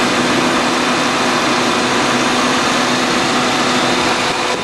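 2000 Dodge Neon's four-cylinder engine idling, heard from close under the hood as a steady hum under an even rushing noise.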